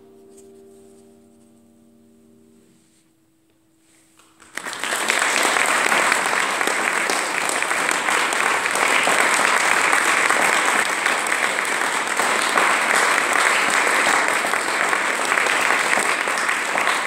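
The last held chord of violin and piano fading away, then audience applause breaking out about four and a half seconds in and continuing steadily.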